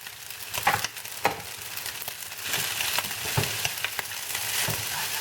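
Spaghetti stir-frying in a pan with bacon, egg, onion and garlic: a steady sizzle with the occasional knock of a utensil tossing the noodles. The sizzle grows louder about halfway through.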